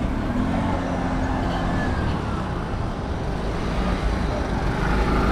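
Street traffic: a motor vehicle's engine running close by, a steady low hum over general road noise.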